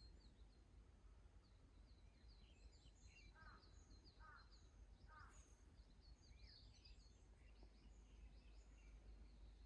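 Faint birdsong from several small birds: many quick high chirps and twitters throughout, with three lower, louder chirping calls about three and a half, four and five seconds in, over a soft low rumble.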